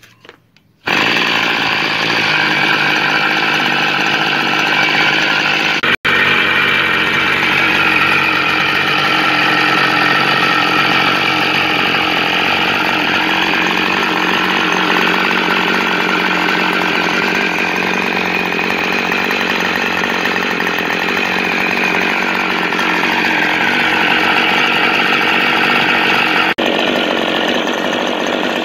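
1981 OS Max 40 SR two-stroke glow engine with an Irvine 40 muffler, turning a 10x7 propeller, running steadily at high speed on a test bench, its pitch slowly wandering up and down. The sound comes in abruptly about a second in.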